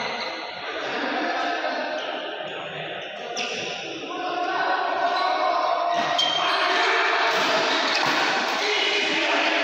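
Badminton doubles play: sharp racket strikes on the shuttlecock and players' footwork on the court, over background voices.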